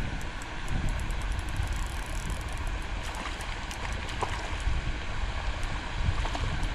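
Strong wind buffeting the microphone: a steady low rumble that swells in gusts.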